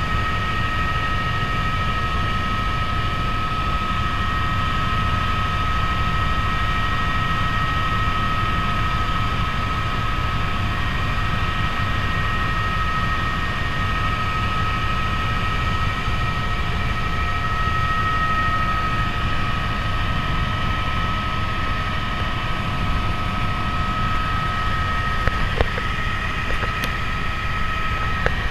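Helicopter cabin noise in steady flight: the low rumble of the rotor and engine with a steady high turbine whine over it. A few small clicks come near the end.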